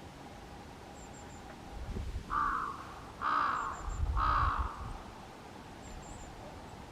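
A crow cawing three times, a little under a second apart, each caw a harsh call of about half a second.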